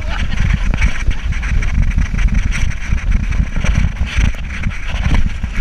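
Heavy wind buffeting on the camera microphone over the rushing hiss of water spray, from an inflatable ring towed at speed behind a speedboat.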